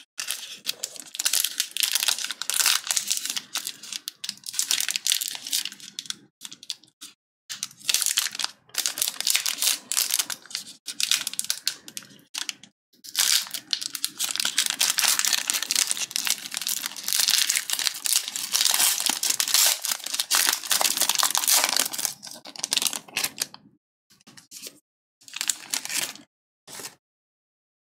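A trading-card pack's black foil wrapper crinkling and tearing as it is peeled open by hand, in irregular bursts with short pauses between them, stopping near the end.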